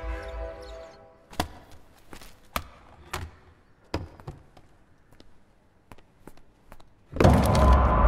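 Horror film soundtrack: a held music chord fades out, then a scattered series of sharp taps and knocks over near-quiet, then a loud sudden music sting with sustained ringing tones about seven seconds in.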